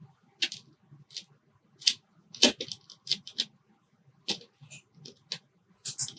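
Small metal lock parts, the pins and springs of a disassembled interchangeable lock core, clicking and tapping as they are handled and set down on a work surface. The clicks are sharp, irregular and about a dozen in number, with the strongest a little past halfway and near the end.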